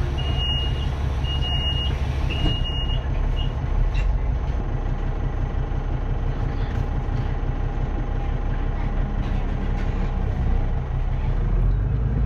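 Cummins ISBe 6.7-litre six-cylinder diesel of a VDL DB300 double-decker bus running with a steady low rumble. Over it a door warning buzzer beeps several times for the first few seconds, with a sharp click about four seconds in. The engine grows a little louder near the end.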